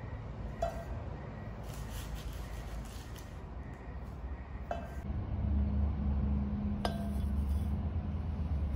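Three sharp clinks, each with a short ring, a few seconds apart, from a hand tool working at a plastic bag of compost. A low steady rumble comes in about five seconds in.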